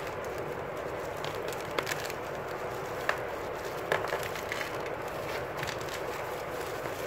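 Bubble wrap crinkling and crackling as it is handled and peeled off a book, with a few sharp crackles scattered through it over a steady background hiss.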